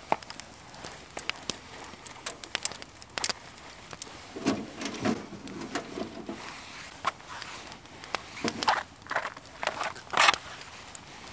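Freshly lit wood fire crackling and snapping inside a small titanium tent stove. Rustling of twigs and split wood being handled beside it, with a longer rustle around the middle and a few louder brushes near the end.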